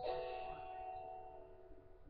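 Music: a held chord of several steady tones, slowly fading away.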